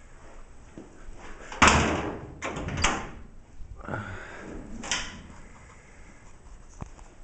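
Steel cab door of a 1954 International Harvester truck being worked: a loud slam a little over 1.5 seconds in, then two lighter clunks of the door and latch around 3 and 5 seconds in.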